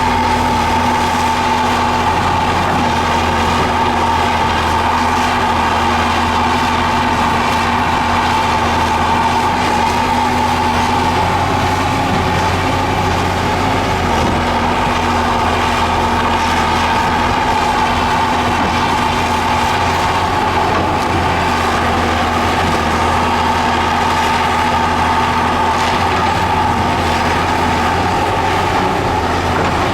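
Heavy earthmoving machine's diesel engine running steadily under load, with a steady high tone over the engine's low hum.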